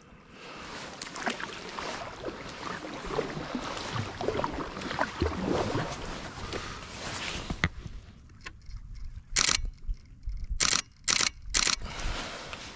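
Nikon D500 DSLR shutter firing in four short rapid bursts near the end, after several seconds of rustling and handling noise.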